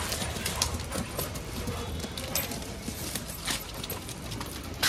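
Dogs' claws and feet clicking and tapping irregularly on hard concrete stairs as they go down.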